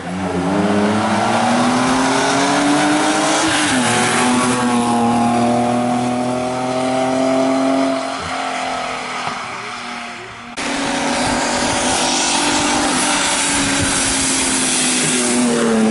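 BMW E30 rally car's engine under hard acceleration, its pitch climbing through the gears with a shift about four seconds in. After an abrupt cut the engine holds steady at high revs, then its pitch falls near the end as the car lifts off.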